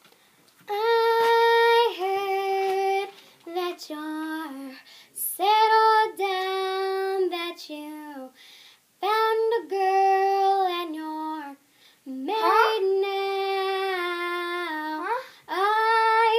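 A high voice singing unaccompanied, in phrases that each open on a long held note and then step downward, with short pauses between them.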